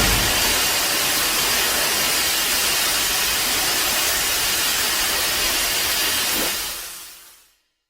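Sound effect of a loud, steady hissing rush like venting steam, following a sudden blast just before. It holds level for about six seconds, then fades away near the end.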